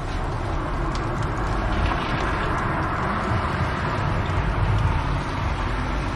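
Fire burning in a fireplace: a steady rumbling hiss with a few faint crackles.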